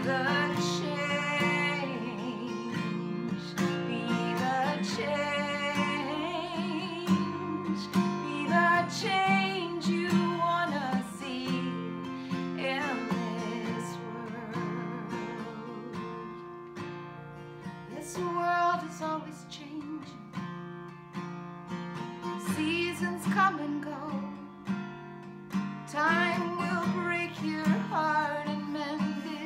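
A woman singing while strumming chords on a Takamine acoustic guitar.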